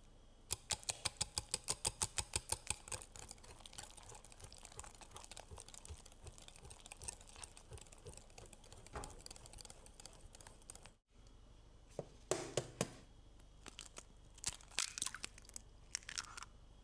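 Cheesecake batter being mixed in a bowl: a utensil clicks against the bowl about five times a second, then keeps up a faster, lighter patter. After a cut come a few separate louder clinks and scrapes.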